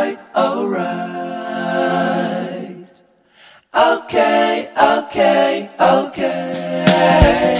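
Background music: unaccompanied voices singing with long held notes, breaking off briefly about three seconds in.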